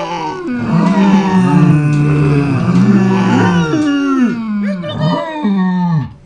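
Several deep animal calls, each held about a second with its pitch dropping at the end, following one another closely and overlapping.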